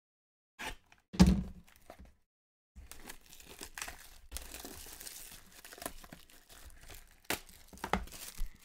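Hands handling trading-card boxes and a foil card pack: a loud thump about a second in, then a long stretch of foil wrapper crinkling, with two sharp knocks near the end.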